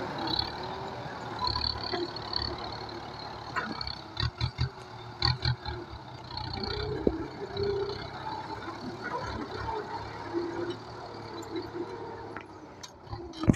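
Kubota M9540 tractor's diesel engine running steadily, with a cluster of sharp knocks about four to five and a half seconds in.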